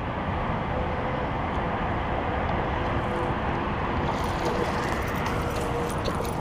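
Steady low rumble of outdoor background noise, like distant road traffic. From about four seconds in, scattered sharp clicks and splashes come through as a hooked largemouth bass thrashes at the surface and is reeled in to the bank.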